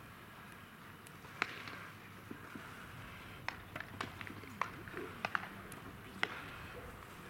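Baseballs popping into leather gloves as several players play catch: about half a dozen sharp pops at irregular intervals, most of them in the second half.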